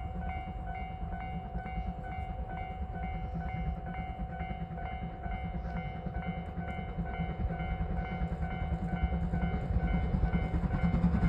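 Japanese level-crossing warning bell ringing in quick, even strokes over a steady tone, as a train approaches, its low rumble growing louder near the end.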